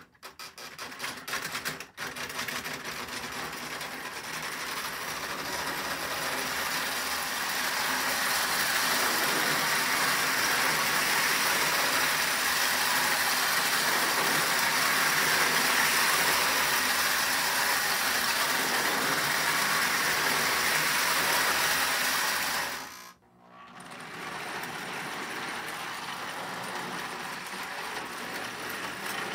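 Marx 490 toy steam locomotive with chugger running around O27 tinplate three-rail track, a steady mechanical whirring rattle that builds as it picks up speed. After a sudden break about three-quarters of the way through, a Marx Western Pacific #799 diesel runs on the same track, a little quieter.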